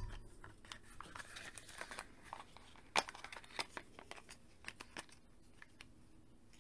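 Hard plastic toy parts clicking and knocking together as they are handled, a scatter of light clicks and rustles with the sharpest click about three seconds in, thinning out after about five seconds.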